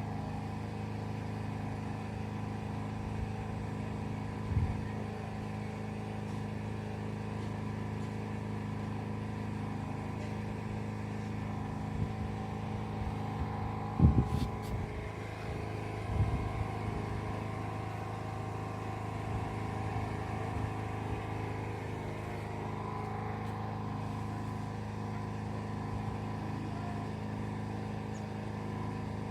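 A motor vehicle's engine running steadily at an even drone, with a few brief knocks about four and a half, fourteen and sixteen seconds in.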